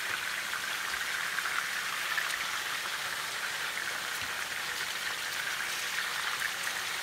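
Chicken pieces frying in oil in an electric skillet: a steady sizzle with small crackling pops throughout.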